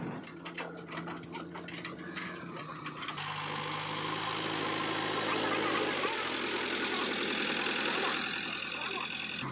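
JCB 3DX backhoe loader's diesel engine running, with clattering clicks over the first three seconds, then a steadier, somewhat louder engine note.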